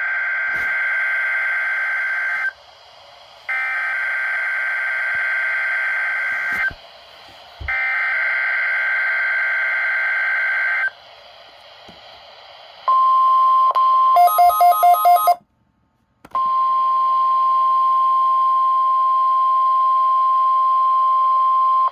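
NOAA Weather Radio weekly test of the alarm tones. First come three bursts of SAME digital header data, each a steady buzzing tone about three seconds long with about a second between them. Then comes the steady single-pitch 1050 Hz warning alarm tone, interrupted near the middle by a brief rapid beeping and a second's dropout.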